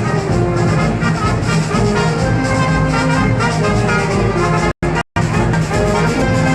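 Brass band playing festival music, with trumpets and trombones over a low brass line; the sound cuts out completely twice, very briefly, about three-quarters of the way through.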